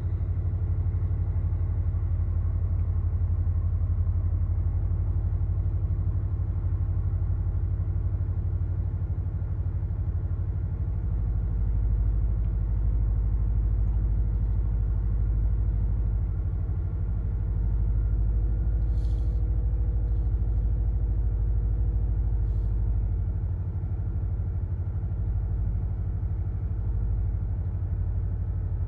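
Subaru Levorg's CB18 1.8-litre turbocharged flat-four idling steadily through an STI Performance Muffler, its exhaust giving a deep, uneven burble: the old-style boxer rumble that this muffler brings back.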